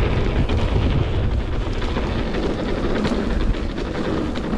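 Mountain bike rolling fast down a gravel track, heard from a handlebar-mounted camera: heavy wind rumble on the microphone over tyre noise on the gravel, with small scattered clicks and rattles.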